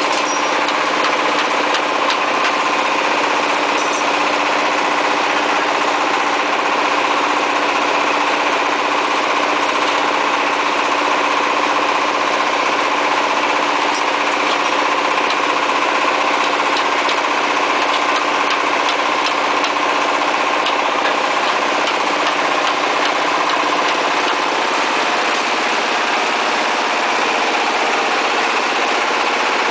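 24 hp diesel engine running steadily, driving a brick-making machine, with a constant hum and a few faint clicks.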